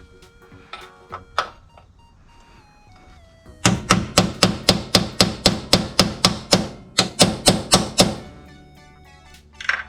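Hammer striking the car's sheet-metal body at a broken bolt hole: a few single knocks, then a fast, even run of about nineteen blows at about four a second. The blows dent the surrounding metal.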